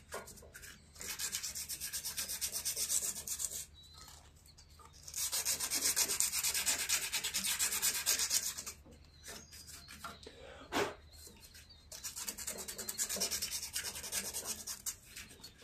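Rusty magnet on a riding mower's flywheel being sanded by hand: quick back-and-forth rubbing strokes in three spells with short pauses between. The rust is being scrubbed off to help the engine get the spark it needs.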